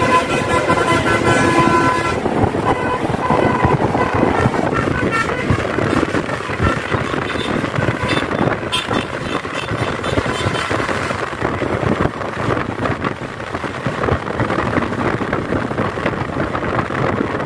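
Tour bus's multi-tone telolet horn of the basuri type playing a quick tune of short notes for the first three or four seconds, with faint snatches of it again around the middle. Road and wind noise run underneath.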